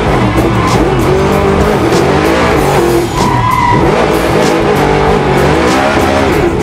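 Drift car engine revving hard and rising and falling in pitch as the car slides, with tyre squeal, over background music.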